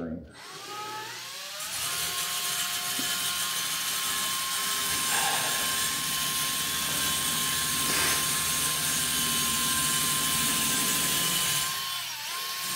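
Small handheld electric grinder with an abrasive wheel spinning up, then running with a steady high whine as it grinds the end of an old exhaust pipe to clean it up. The whine dips briefly near the end.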